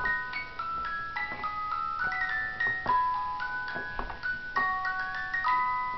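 Wind-up music box playing its tune: a steady run of high, plucked, ringing notes from the metal comb, each fading as the next begins.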